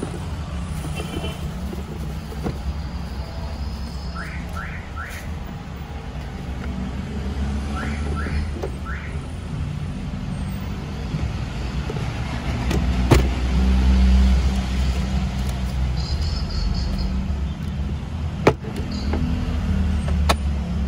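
Car running on the road, heard as a steady low engine and road rumble that swells about two-thirds through. A few sharp clicks sound over it, and two quick sets of three short chirps.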